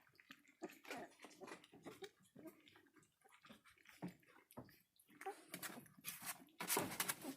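Three-week-old border collie puppies eating from a shared dish: faint, irregular wet smacking and lapping, busier and louder over the last couple of seconds.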